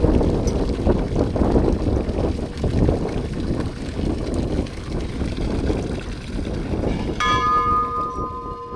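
Steady rough rumbling noise, then a bell struck about seven seconds in, ringing on with a clear, sustained tone.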